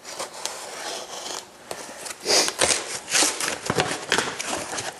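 Cardboard mailing box being handled and opened: irregular rustling and scraping of cardboard and tape with small clicks, busiest from about two seconds in.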